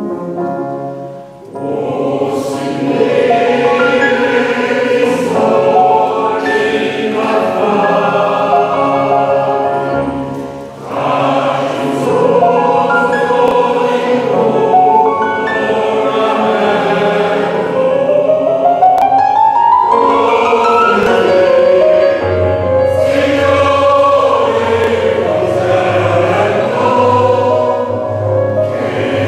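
Mixed choir of women's and men's voices singing in phrases, with brief breaks about a second and a half in and about ten seconds in; low sustained notes join in the second half.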